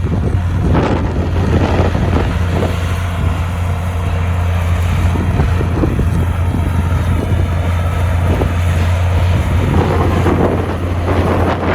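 Komatsu bulldozer's diesel engine running with a steady low drone, with scattered knocks and rattles over it.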